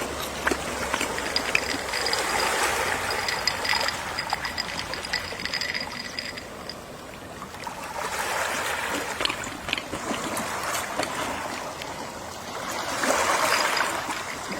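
Gentle sea waves washing ashore, swelling and ebbing three times, with small splashing clicks as the water breaks.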